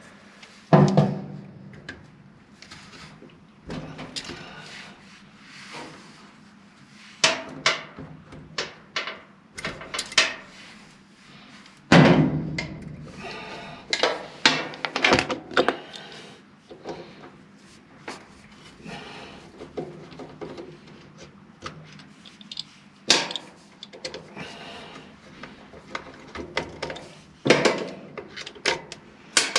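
Irregular clicks, knocks and metal clatter of pliers working the wire connectors off a dryer's motor switch, with the loudest knocks about a second in and about twelve seconds in.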